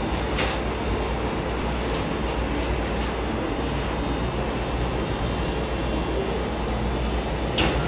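Steady background machine hum with a rushing noise, unchanging throughout, with two faint clicks, one just after the start and one near the end.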